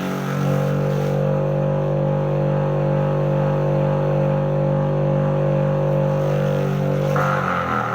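Electric motor salvaged from a water pump running a homemade grass chopper, with a steady, even hum. About seven seconds in, a rougher, noisier sound joins it.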